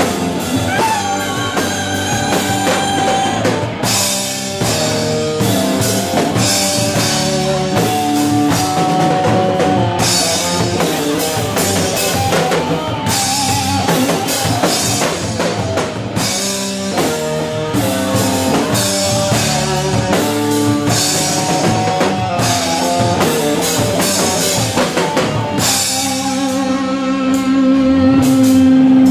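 Live rock band playing: electric guitar melody lines over a drum kit with cymbals and an electric bass. A long held note comes in near the end and grows louder.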